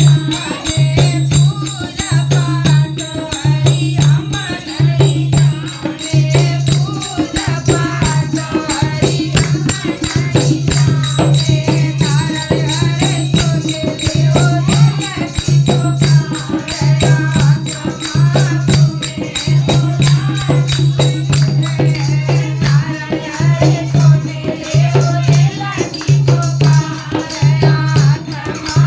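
Hindi devotional bhajan music: a pulsing low drum beat under steady held tones, with rattling shaker-like percussion and a wavering melody line.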